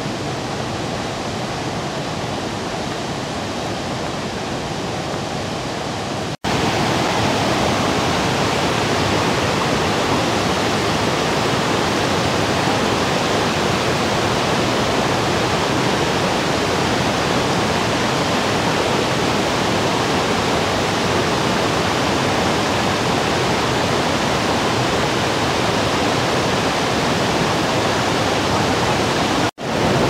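Galboda waterfall's steady rush of falling water. After a sudden cut about six seconds in it is louder and closer.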